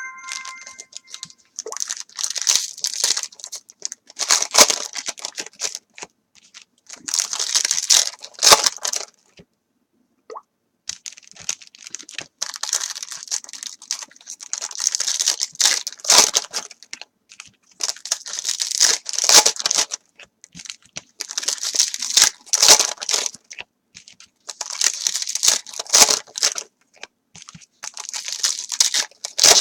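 Foil wrappers of 2010 Topps Chrome trading card packs being torn open and crinkled, in repeated bursts of rustling and tearing with short pauses between.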